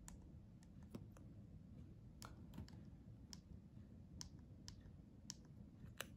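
Faint, sharp clicks of the Garmin Edge 530's physical side buttons being pressed to scroll a menu, about ten presses at an uneven pace.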